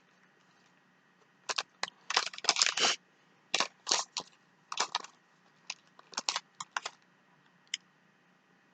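Eating noises close to the microphone: irregular short crunching and crackling sounds in small clusters, fading out near the end.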